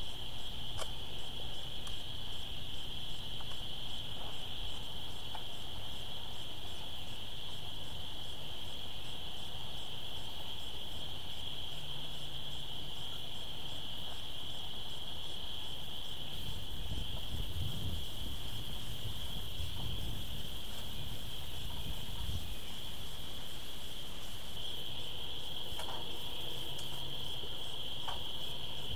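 A steady high-pitched insect-like drone that never breaks, with a low rumble for several seconds around the middle and a few faint clicks.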